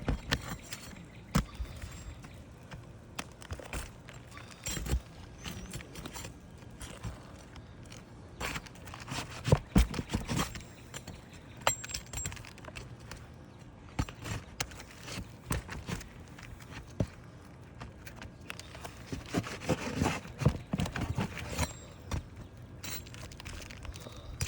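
Irregular knocks, taps and scrapes of a hand tool working nails loose from asphalt roof shingles, the sharpest knocks about ten seconds in and a busier run of scraping and tapping around twenty seconds.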